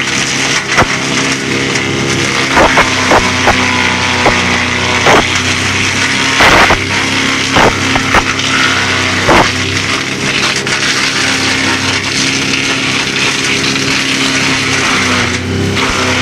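Bugnot BVE 55 branch chipper, its diesel engine running steadily under load, as conifer branches are drawn in by the feed roller and chipped with repeated sharp cracks of snapping wood. The cracks come thick in the first ten seconds or so and thin out after, leaving the engine and chipping mechanism running.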